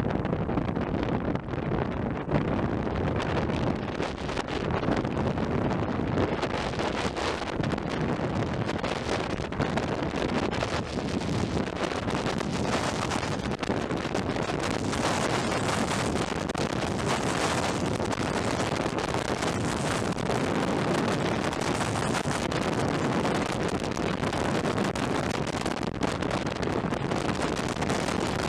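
Wind buffeting the microphone at speed, mixed with the steady rolling of longboard wheels on asphalt during a fast downhill run; the hiss grows brighter over the first dozen seconds as the rider picks up speed.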